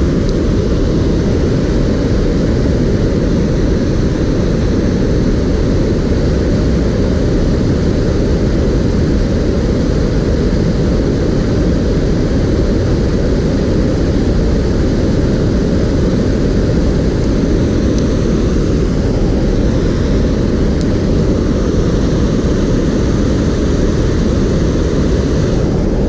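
Steady rushing of river water pouring over a low weir: a constant, even low rush with no separate events.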